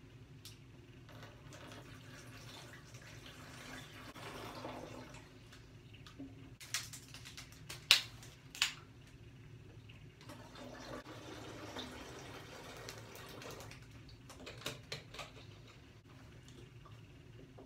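Gatorade being poured from plastic bottles into an empty plastic laundry-detergent jug, in two stretches of trickling liquid, with a few sharp clicks and knocks of plastic bottles and caps being handled.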